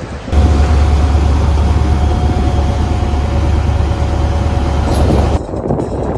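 Boat engine running at a steady speed: a loud, even low drone with a faint steady whine above it, starting suddenly just after the start and cutting off abruptly about five seconds in.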